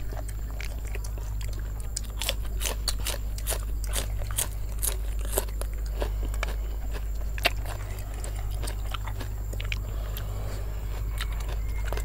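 Close-miked eating: chewing with many short sharp crunches, over a steady low hum.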